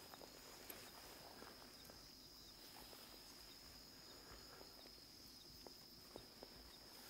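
Near silence: a faint, steady, high-pitched insect drone, with scattered soft ticks and crackles.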